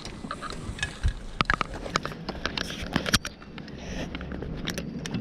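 Bicycle rolling over a dirt road, tyres crunching on grit with many irregular sharp clicks and crackles.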